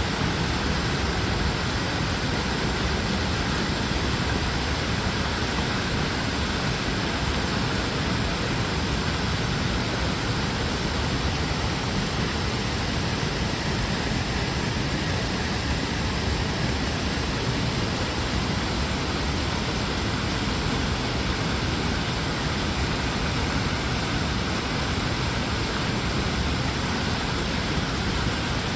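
A tall waterfall rushing steadily, an even roar of falling water with no change.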